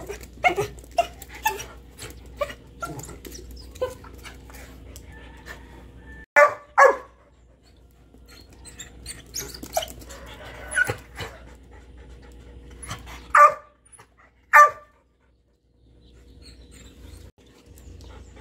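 Dog barking in short high yips: two close together about six seconds in, and two more about a second apart a little past the middle. A run of light clicks comes before them in the first few seconds.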